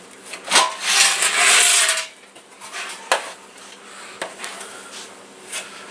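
A heavy quilted moving blanket rustles as it is pulled over a plastic scooter gas tank, loudest in a long swish about a second in. A few light knocks and clicks from handling follow.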